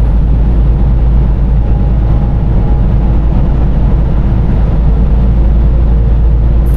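Loud, steady drone of a truck driving at highway speed, heard from inside the cab: engine, tyre and wind noise, deepest in the bass, with a faint steady hum running through it.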